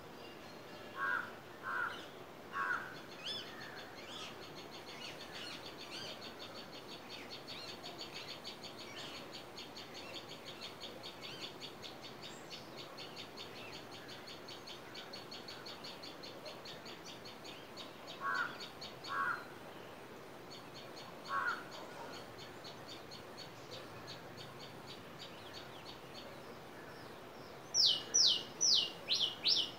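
Early-morning birdsong: crows cawing three times near the start and three more times around two-thirds of the way through, over a fast, high trill of short notes. Near the end another bird begins a loud series of falling chirps, about four a second.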